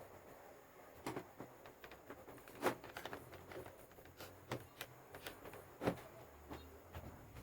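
Faint handling sounds of angle grinder parts: scattered clicks and knocks, the sharpest about a second in, near three seconds and near six seconds, with no motor running.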